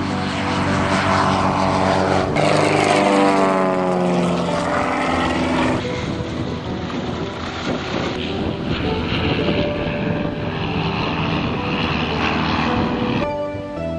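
Piston engines and propellers of light single-engine aircraft flying low passes. About three seconds in the engine note drops in pitch as a plane goes by, and the sound changes abruptly a few times as one plane gives way to the next.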